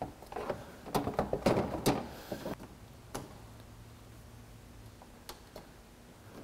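Plastic push clips being pressed back into the plastic radiator-support cover by hand. A quick run of clicks and knocks comes in the first two and a half seconds, then a few single clicks, one near the middle and one near the end.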